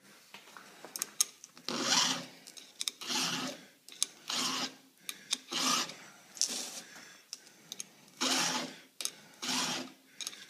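Round file rasping over the steel cutters of a chainsaw chain held in a vise, in about eight separate strokes roughly a second or so apart. A few light clicks come about a second in.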